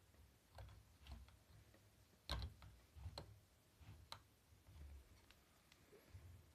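Faint, scattered clicks and taps of plastic bricks as a hand handles a brick-built model and opens its small hinged door, with light handling thuds; the sharpest click comes a little over two seconds in.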